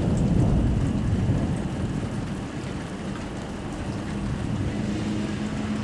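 Rain and gusting wind in a severe thunderstorm, with a low rumble that is strongest in the first second or so.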